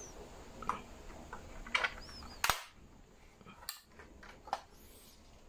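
Sharp clicks from a 1:24 Welly BMW 335i diecast model car as its opening front doors and bonnet are snapped shut by hand and the model is handled: about five clicks, the loudest about halfway through.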